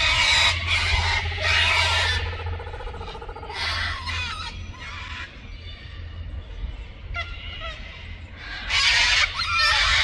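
Laughing kookaburras calling: raucous laughing bursts, loudest for the first two seconds and again near the end, with shorter calls between.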